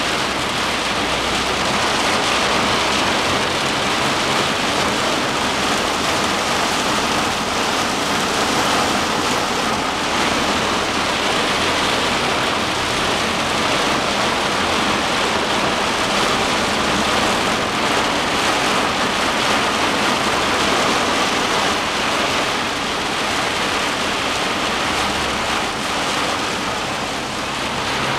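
Heavy rain falling on a car's roof and windscreen, heard from inside the cabin as a steady, loud hiss.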